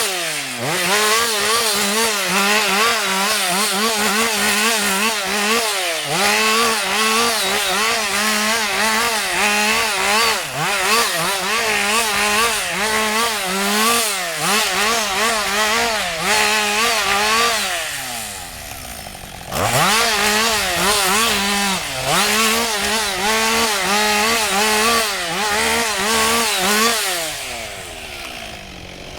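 Husqvarna 560 XP two-stroke chainsaw running at high revs and cutting wood, its pitch wavering under load. The throttle is let off briefly several times between cuts, and the saw drops to a low idle around 18 s in and again near the end.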